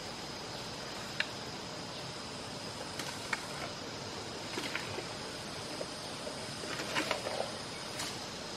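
Asian elephant feeding on grass and stalks: scattered crunches and rustles of leaves over a steady outdoor hiss, with a faint steady high tone running through it.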